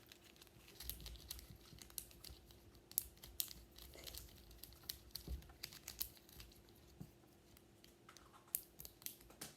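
Small plastic fidget toys being handled: scattered faint irregular clicks and clacks.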